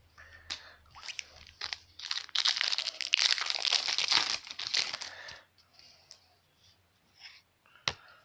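A trading card pack's wrapper being torn open and crinkled. There are a few light crackles, then a dense, louder stretch of crinkling and tearing for about three seconds, and one sharp tick near the end.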